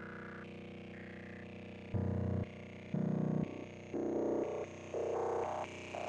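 Electronic synthesizer music: a sequence of short held tones stepping from pitch to pitch over a steady low drone. In the second half, four louder, lower notes come about a second apart.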